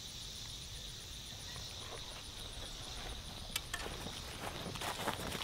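Insects chirping steadily in a high, rapid, even pulse. A sharp click comes about three and a half seconds in, and footsteps through grass start near the end.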